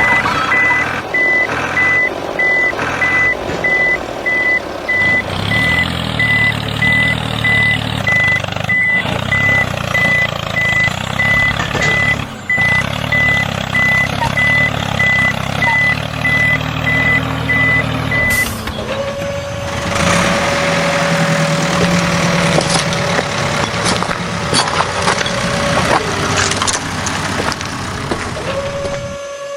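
Vehicle reversing beeper sounding in evenly spaced beeps over a low engine hum, stopping about two-thirds of the way in; after that a steady whine with rattly mechanical noise runs on until near the end.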